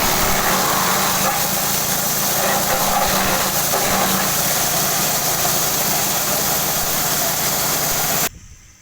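Multi-purpose forage chopper and hammer mill running on its engine drive: a loud, steady mechanical din over a low hum, which cuts off suddenly near the end.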